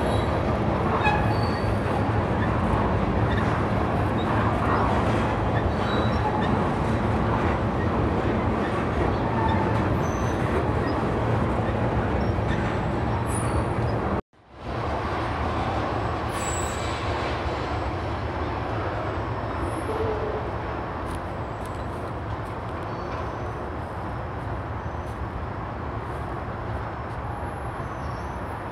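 Freight train tank cars rolling past on the rails, a steady rumble of wheels on track with short high wheel squeaks now and then. After a break about halfway through, the rumble carries on slightly quieter as the train moves away.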